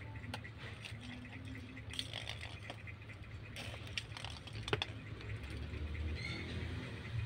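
Kittens playing on a tile floor: scattered light taps and clicks of paws and a small plastic toy ball knocking and rolling about, with one sharper knock a little after the middle. A steady low rumble runs underneath.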